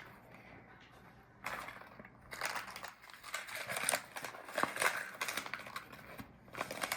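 Small plastic packaging bag crinkling and rustling as it is handled and opened, in irregular bursts with sharp crackles starting about a second and a half in.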